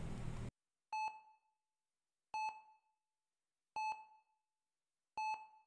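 Heart-rate monitor beeping: four short, identical electronic beeps about a second and a half apart, each opening with a faint double click. A faint hiss cuts off about half a second in.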